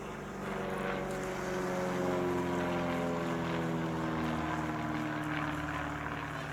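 SIAI-Marchetti SF-260's six-cylinder piston engine and propeller droning as the aircraft passes. The drone swells about a second in, then slowly eases as its pitch falls.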